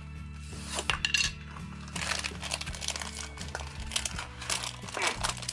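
Plastic packaging crinkling and small plastic toy pieces clicking and clinking together as a small toy pack is opened and emptied, over steady background music.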